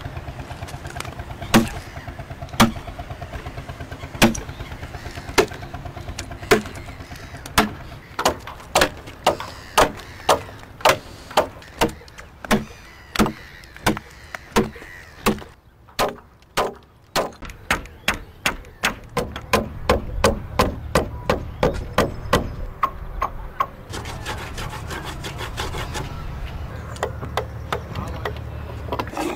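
Axe blows biting into wood: a long series of sharp chopping strikes, at first about one a second, quickening to about two a second, with a short pause midway.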